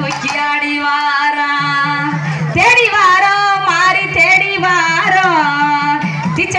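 Tamil folk song for the mulaipari circle dance: a singer holding long, wavering notes over steady percussion, growing louder about two and a half seconds in.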